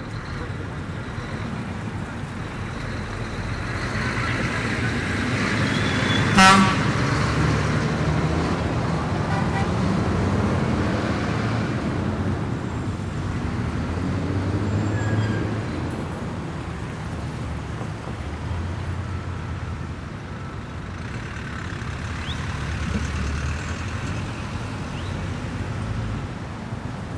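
City street traffic: a steady rumble of cars and trucks passing, swelling and easing off. A short car horn toot sounds about six seconds in and is the loudest moment.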